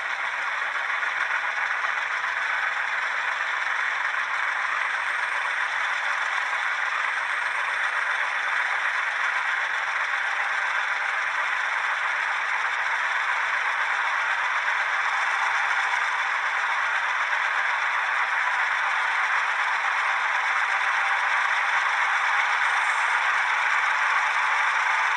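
Model diesel locomotive's sound decoder playing a diesel engine sound through a small onboard speaker. It is a steady, thin, rattly hiss with no bass, growing slightly louder over the stretch.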